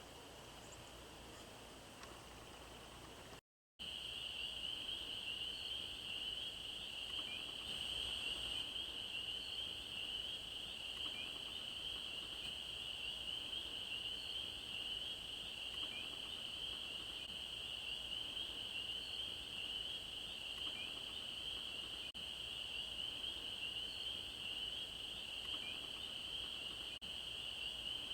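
Faint background hiss, then, after a cut about three and a half seconds in, a dense chorus of frogs calling: a steady high-pitched trilling that runs on without a break.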